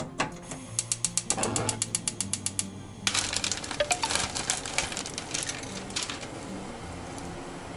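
Gas stove's push-turn igniter clicking rapidly, about eight clicks a second for some two and a half seconds, as the burner is lit. Then a plastic bag crinkles and rustles as dried glass noodles are tipped out of it into the pot.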